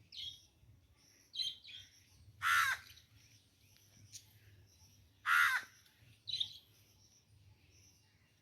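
Birds calling: two loud, harsh calls about three seconds apart, with shorter, higher chirps in between.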